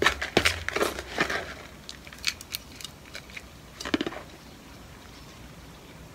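Hands handling a small plant's root ball and potting substrate in plastic pots: irregular soil crunching and rustling, with a run of short crackles in the first second and a half, a few more about two seconds in and another cluster about four seconds in.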